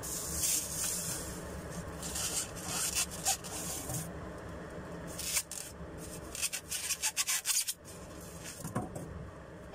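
Styrofoam packaging inserts rubbing and scraping, with plastic wrap rustling, as blender parts are lifted out of them: a run of short, irregular scrapes.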